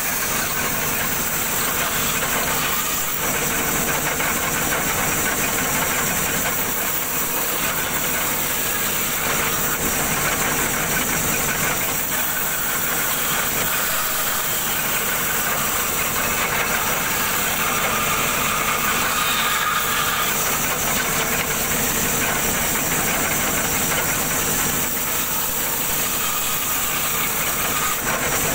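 Large band saw running steadily, its blade cutting through a thick block of wood, with a constant high hiss over the machine's hum.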